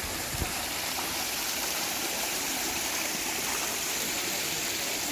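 Valley stream running steadily, an even rush of water, with a brief low thump about half a second in.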